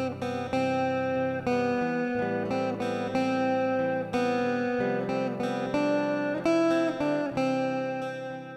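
Instrumental background music: a steady run of plucked string notes, falling away in level near the end.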